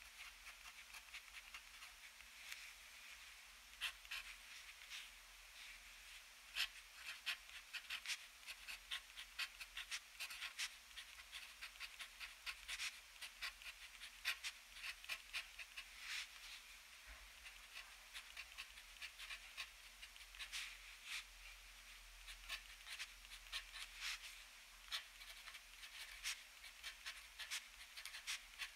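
Extra-fine steel nib of a TWSBI ECO fountain pen scratching across paper in quick, irregular handwriting strokes, faint and dry.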